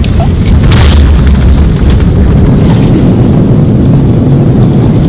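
Jet airliner on the runway, heard from inside the cabin: a loud, steady low rumble of the landing roll, with a sharp thud about a second in.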